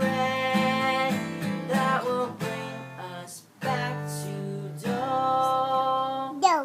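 Acoustic guitar being strummed, with a voice holding long sung notes over it and sliding in pitch near the end.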